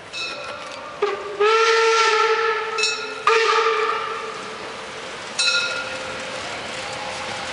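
Steam whistle of class 52 steam locomotive 52 8177-9 sounding as it approaches: two long, steady blasts back to back starting about a second in, the second fading out, with a few brief higher toots around them.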